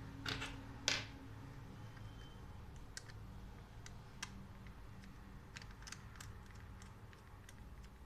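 Small objects being handled: two louder rustling clicks in the first second, then scattered light clicks and taps.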